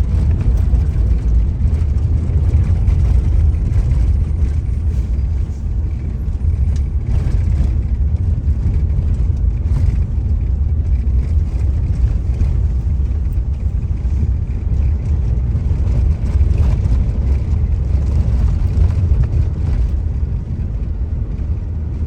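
Steady low rumble of a car driving, heard from inside the cabin: engine and tyre noise with no distinct events.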